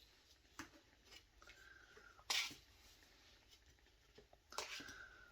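Tarot cards being handled and laid down: a few faint clicks and two short swishes of card stock, the louder one about two seconds in and another near the end.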